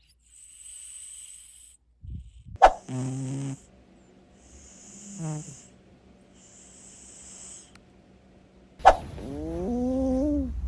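Sleeping cats snoring: airy, whistling breaths alternate with short, deeper pitched snores. Two sharp clicks come in, one about a quarter of the way through and one near the end, the second followed by a louder snore that wavers in pitch.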